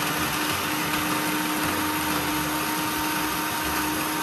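Electric food processor running steadily, its blade grinding a bowl of biscuits into crumbs, with a steady motor hum under the noise of the grinding.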